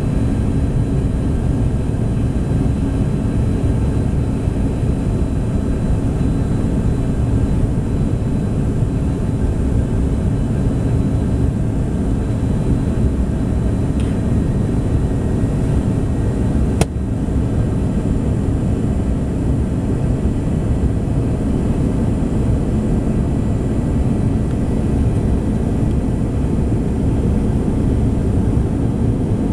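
Steady cabin noise of a Bombardier CRJ regional jet: its rear-mounted GE CF34 turbofans and the rushing airflow, heard from inside the passenger cabin, with faint steady whines above it. A single sharp click about seventeen seconds in.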